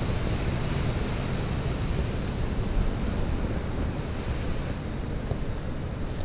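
Wind buffeting the microphone over the steady wash of surf breaking on the rocks at the foot of a sea cliff.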